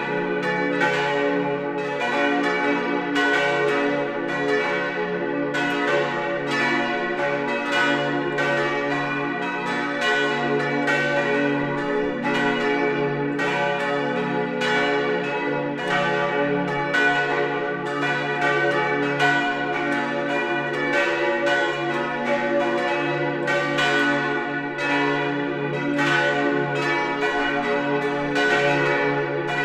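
Full peal of the parish church's tower bells: several large bronze bells, the main four tuned d', f♯', a', b', ringing together in a continuous stream of overlapping strokes.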